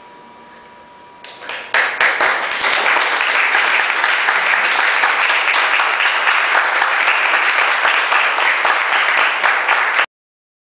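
Audience applauding: the clapping starts about a second in, swells quickly to a dense, even patter of many hands, and cuts off suddenly near the end.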